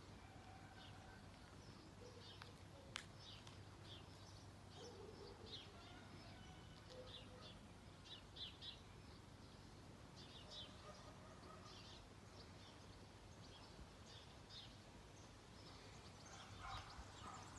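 Birds chirping faintly at irregular intervals over a low, steady hum, with one sharp click about three seconds in.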